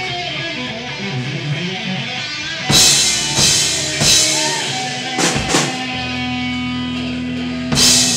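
Live rock band in an extended ending: held, ringing guitar chords punctuated by a string of big drum-and-cymbal crashes, the last one near the end.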